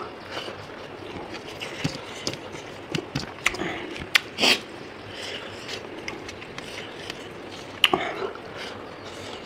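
A man eating, with chewing and wet mouth sounds: scattered short clicks and smacks, a louder cluster about four seconds in and again near the end.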